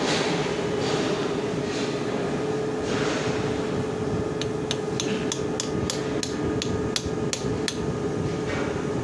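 Hammer striking a steel drift punch about a dozen times in quick succession, roughly three blows a second, starting about four seconds in. It is driving a ball bearing of the welding machine's cooling-fan motor, which was replaced because of bearing play.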